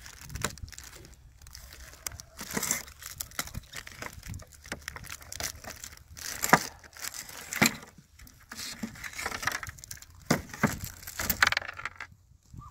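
Irregular crinkling and rustling of something being handled, with scattered sharp clicks and knocks; the loudest knocks come about six and a half and seven and a half seconds in.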